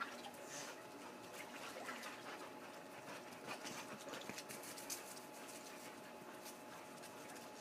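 Faint outdoor ambience: scattered light clicks and ticks, clustered around the middle, over a faint steady hum.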